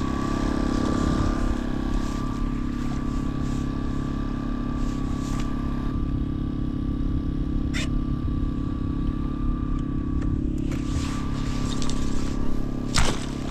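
Steady engine drone from the bowfishing boat, with a thin steady whine above it. A sharp click comes about halfway through and a louder knock near the end.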